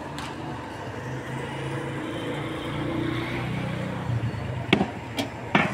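Street traffic: a motor vehicle engine running steadily, its pitch rising a little midway, with three sharp clicks near the end.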